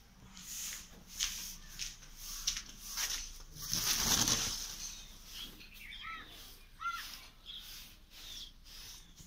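Handling noise of a phone camera carried while walking: repeated knocks and footsteps, with a louder rush of cloth rubbing over the microphone about four seconds in. A bird calls twice near the end.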